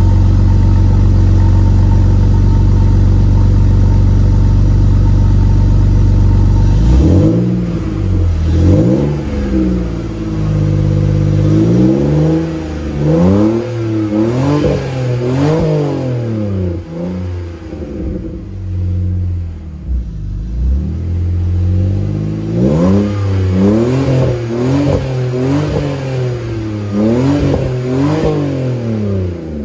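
BMW E46 sedan's M54 straight-six running through a quad-tip M3-style exhaust: it idles steadily for about seven seconds, then is revved again and again in quick blips that rise and fall in pitch, with a quieter lull about two-thirds of the way in before another run of revs.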